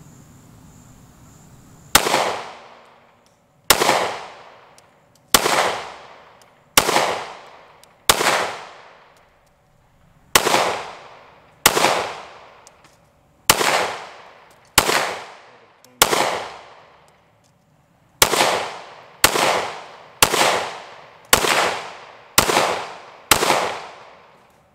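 Ruger-57 pistol firing 5.7×28mm rounds, seventeen single shots. They come about every second and a half, then quicken to about one a second after some 18 seconds, and each shot trails off in a long echo.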